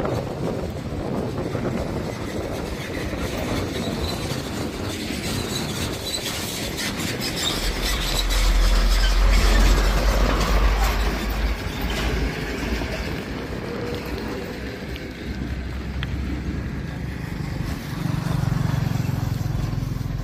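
Road traffic: a heavy covered cargo truck drives past, its engine and tyres loudest about eight to eleven seconds in, and a motorbike passes near the end.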